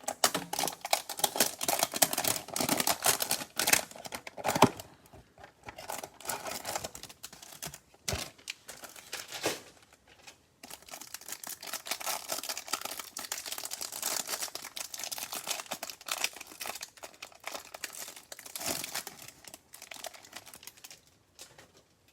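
Plastic trading-card pack wrapper crinkling and tearing as a pack is torn open and the cards are pulled out. The crackling runs in two long stretches with a brief pause about ten seconds in.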